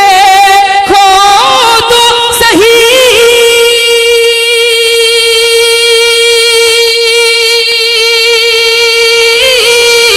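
A male naat reciter sings one long, high, wordless held note with a wavering vibrato. The note slides between a few pitches over the first three seconds, holds steady on one tone for about six seconds, then drops lower near the end.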